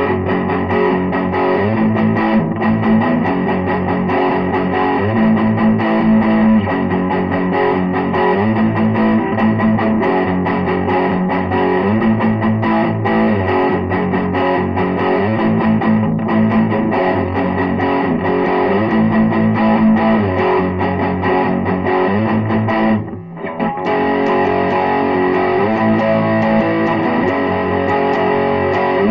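Distorted electric guitar playing an instrumental rock/metal piece, sustained chords changing every second or two, with a brief break about three-quarters of the way through.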